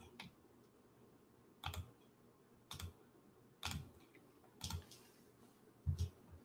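Faint clicks on a computer mouse or keyboard, about one a second with two close together near the end, as screen sharing is being set up.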